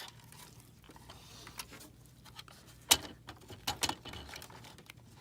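Light clicks and taps of hands handling the plastic parts and cable inside an inkjet printer, with one sharp click about three seconds in and a few quicker clicks just before four seconds.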